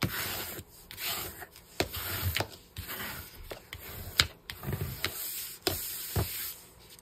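A flat spreading tool rubbing and scraping across paper in repeated strokes as glue is spread, with a few sharp clicks among them.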